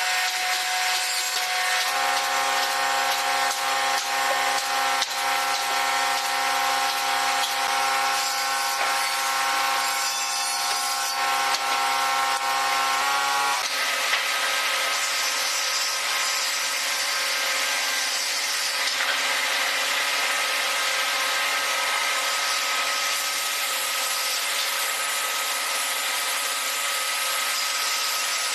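A woodworking power tool running steadily with a motor whine, its tone shifting abruptly about halfway through.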